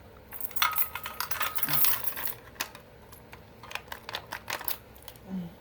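A bunch of metal keys jangling and clicking as keys are tried in the lock of a fire alarm pull station, in two spells of clatter. The key is not opening it, which he puts down to it possibly being the wrong key.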